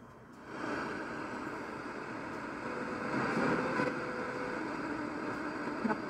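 Static hiss from a Worldstar MBR-1 multi-band radio's speaker as it is tuned between stations, coming up about half a second in, with a faint steady tone through it in the middle.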